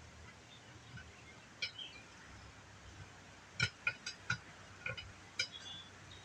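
Steel tire irons clinking against the ATV wheel rim as the tire is worked over it: a scattered run of short, sharp metallic clinks, one early and then about half a dozen in quick succession through the middle and later part.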